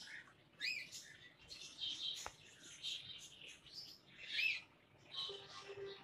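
Small birds chirping, a string of short high calls, several of them rising-and-falling arcs, the loudest about four and a half seconds in.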